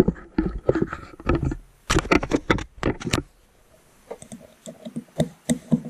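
Hands fitting a plastic printer side mount and its small machine screws: a quick run of sharp clicks and rattles for about three seconds, then softer scattered ticks as a screwdriver is set into the screw.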